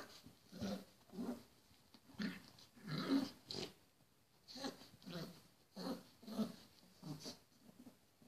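Blue Staffordshire bull terrier puppy giving short growls, about one or two a second, as it chews and tugs at a sheepskin boot.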